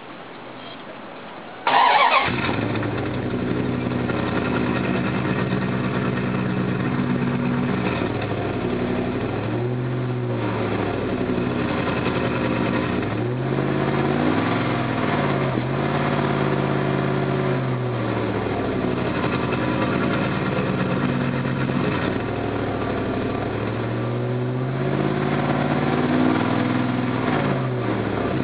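A 1996 Dodge Ram 1500's 318 Magnum 5.2-litre V8 starts about two seconds in and then idles, heard at the stock single tailpipe. It is revved briefly several times, the pitch rising and falling back to idle.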